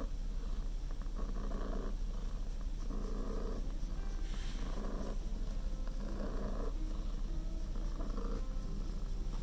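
Calico cat purring steadily while being stroked on the head, a continuous low, fluttering rumble close to the microphone.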